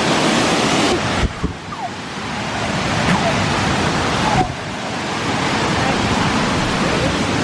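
Waterfall rushing steadily, loud and close on the microphone; the sound changes abruptly about a second in, going duller with a brief thump, and returns just past four seconds.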